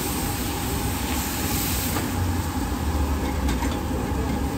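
Steady low rumble with a hiss above it, the background noise of a busy street food stall, with a couple of faint clicks about three and a half seconds in.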